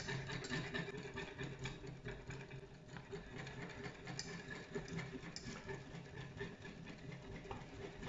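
Wire whisk stirring and scraping around a metal saucepan as powdered pigment is whisked into a thick, boiling flour-and-water paste: quick, irregular clicks and scrapes over a steady low hum.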